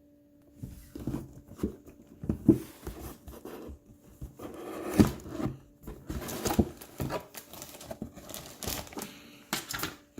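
Cardboard model-kit box being opened and its contents handled: irregular knocks and scrapes with rustling and crinkling of cardboard and plastic wrapping, starting after a near-quiet first second.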